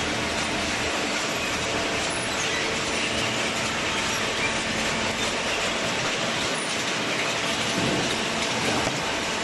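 Steady noise of machinery running, an even rushing sound with a faint hum beneath it.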